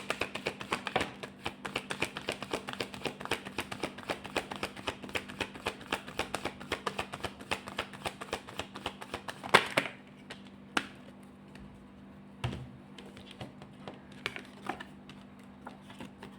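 A deck of tarot cards being shuffled by hand: a quick run of card clicks, several a second, for about ten seconds, ending in a louder knock, then a few scattered clicks as the cards are handled. A steady low hum sits under it.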